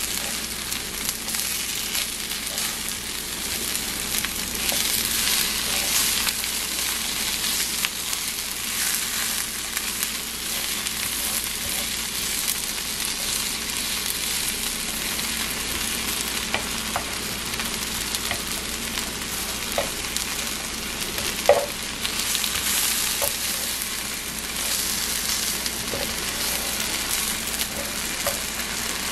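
Veggie chicken patties, spinach and red onion sizzling steadily in a nonstick frying pan while being stirred and turned, with light scrapes and taps of the utensil against the pan and one sharper knock about two-thirds of the way through.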